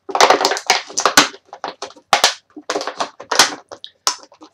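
Stiff packaging crackling and crunching in irregular bursts as a collectible figure is wrestled out of its box and holder by hand.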